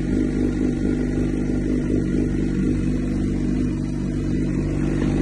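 Suzuki GSX-R600's inline four-cylinder engine idling steadily.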